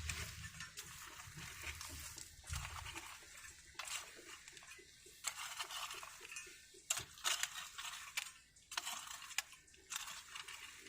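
Irregular crunches, scrapes and light clinks of hand work in garden soil, a dozen or so sharp sounds at uneven intervals, with a low rumble that fades out about three seconds in.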